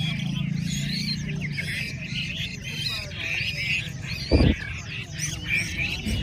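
Many caged Chinese hwameis singing at once, a dense chorus of overlapping whistled phrases. A single dull thump stands out a little past four seconds in.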